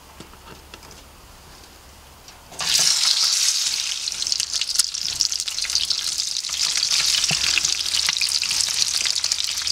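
Sliced, pre-seared bone-in New York strip steak dropped into a stainless steel pan of hot clarified butter, bursting into loud sizzling frying about two and a half seconds in. The sizzling continues with constant crackling and spitting as more pieces go in.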